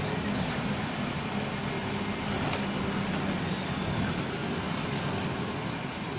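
Interior of a single-deck bus on the move: the engine runs steadily under road noise, with a faint steady high whine and a few light rattling clicks.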